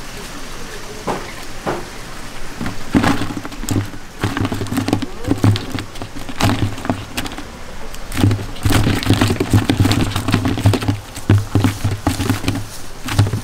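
Knife chopping on a cutting board in quick, repeated strokes, each a sharp knock with a low thud from the board, while raw squid is sliced for sashimi.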